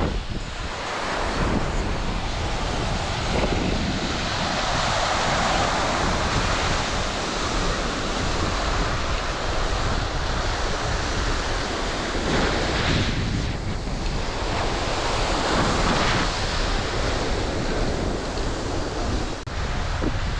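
Ocean waves breaking and washing up the beach, swelling and fading every few seconds, with wind rumbling on the microphone.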